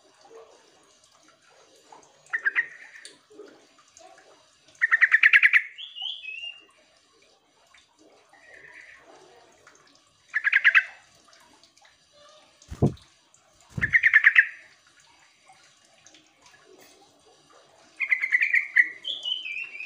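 Yellow-vented bulbul calls: short, rapid, bubbly chattering phrases repeated every few seconds, with fainter phrases in between. Two dull thumps fall a second apart midway through.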